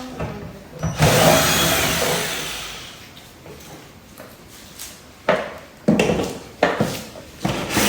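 Tool and handling noise from dismantling an LCD TV: a loud rasping scrape starting about a second in and fading out over about two seconds, then several sharp knocks near the end.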